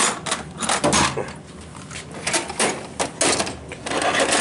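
Steel tool box drawers being pushed shut and pulled open: a series of sharp metal clacks and knocks.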